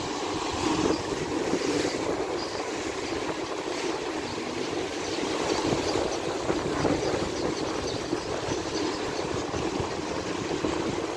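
Muddy water of the Kampar River's tidal bore (bono) rushing and churning over a flooded sand bank, a steady loud rush of water.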